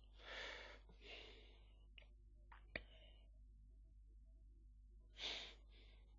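Near silence: a faint steady hum with a few soft breathy puffs, the strongest near the start and another about five seconds in, and one small click near three seconds.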